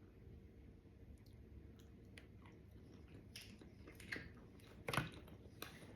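Close-up chewing of KFC fried chicken, quiet, with scattered sharper clicks of the mouth and food, the loudest about four and five seconds in.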